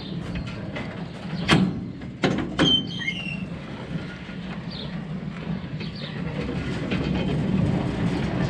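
New Holland 310 small square baler running and cycling its needles and knotters to dry-tie twine. A few sharp metallic clanks come about one and a half to two and a half seconds in, followed by a brief high squeal, over the steady running of the machine.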